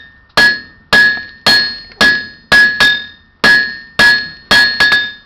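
Hand hammer striking a red-hot iron bar on an anvil, about ten blows at roughly two a second with a few quick doubles. Each blow leaves the anvil ringing with a clear high tone. The smith is drawing out the bar.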